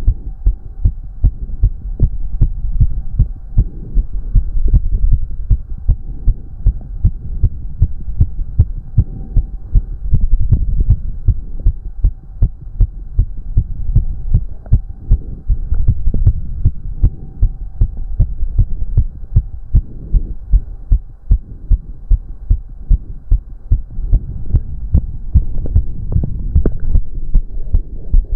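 A man's heart beating fast, raised by cardio exercise: a steady run of low, thudding beats at about two a second.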